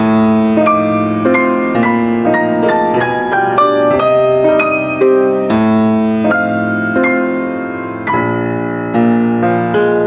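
Solo piano music, a gentle melody with a new note struck about every half second over ringing chords.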